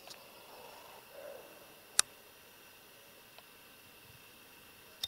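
A single sharp click about two seconds in, with a few fainter ticks around it, over quiet woodland background. In the first second and a half there are soft, low calls.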